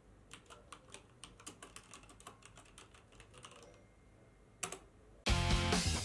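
Computer keyboard typing: a quick, uneven run of key clicks, then a louder double click after a short pause. About five seconds in, a rock song with drums, bass and guitar starts abruptly and loudly.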